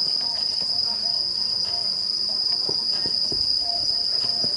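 Insects trilling on one steady, continuous high note, with scattered short soft thuds from players' feet and the ball on artificial turf.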